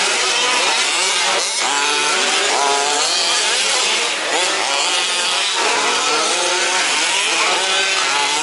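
Several 1/5-scale petrol RC trucks' small two-stroke engines running at once, each one revving up and falling back again as they race, their pitches overlapping without a break.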